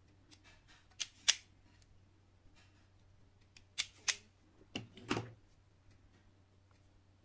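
Self-adjusting wire stripper clacking on thin wire: two sharp clicks about a second in and two more about four seconds in, then a duller knock or two just after.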